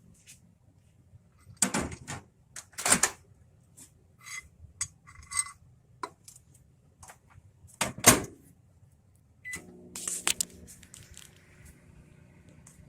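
Microwave oven being set going: sharp knocks and clicks of the door and handling, a few short keypad beeps, another knock, then a beep about nine and a half seconds in and the oven running with a steady hum, heating a piece of osmium metal.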